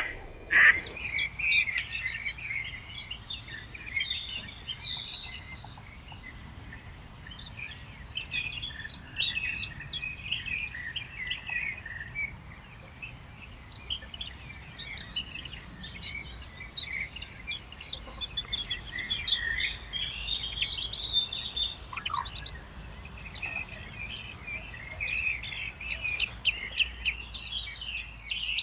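Several songbirds singing over one another in a dense, continuous chatter of quick chirps and trills, with one loud call right at the start.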